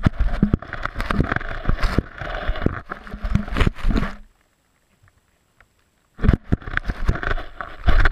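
Vizsla chewing and gnawing a carrot right up against the microphone: dense crunching, clicks and scraping. It stops for about two seconds midway, then starts again.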